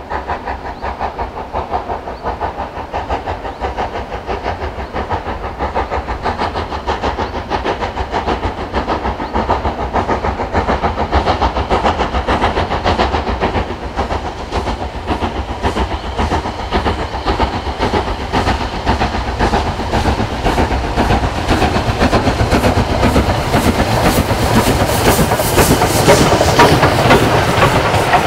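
Steam locomotive working a train, its exhaust beats coming in a steady rhythm and growing steadily louder as it approaches and draws level. Near the end the coaches roll past.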